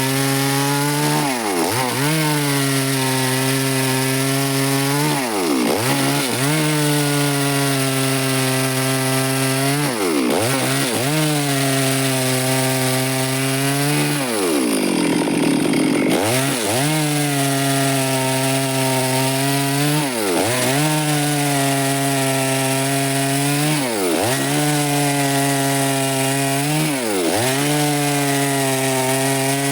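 Stihl chainsaw running under load, cutting through wood. The engine pitch drops sharply and recovers every few seconds, with a longer dip about halfway.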